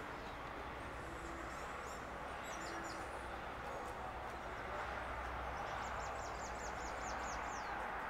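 Outdoor background noise, a steady even rush, with a small bird calling over it: a short high chirp about two and a half seconds in, then a quick run of about ten high, falling chirps near the end.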